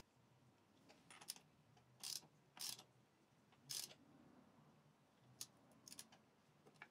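Faint, scattered ratchet clicks and short metal scrapes, about six brief strokes, as a socket ratchet runs the primary drive nut back onto the crankshaft of a Suzuki DR350S whose threads were damaged by over-torquing.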